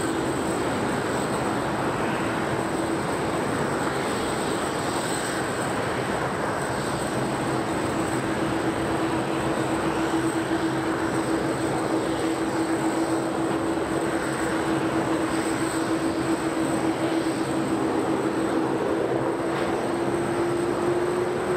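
Steady airport apron noise: a jet turbine's constant whine over a broad rushing roar. The whine rises slightly in pitch near the end.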